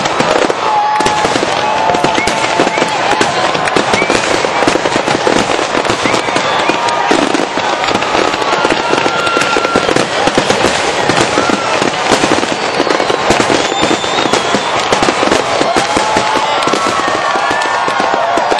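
Aerial fireworks display: a dense, continuous barrage of shell bursts, bangs and crackling, with no letup.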